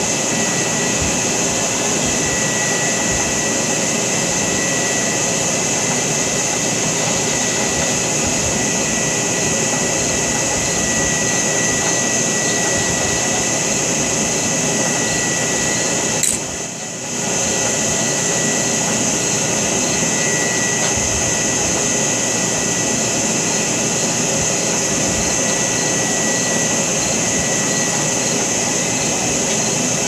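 Steady mechanical whir with a thin high whine running through it. It dips briefly about seventeen seconds in.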